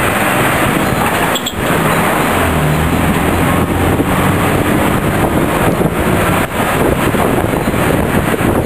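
Engine and road noise of a moving vehicle, heard from inside it as it drives along a street: a steady, dense rumble and hiss.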